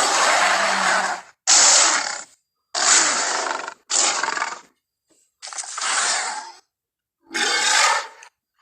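A run of King Kong creature sound effects: about six separate breathy roars and grunts, each lasting a second or less, with dead silence cut between them.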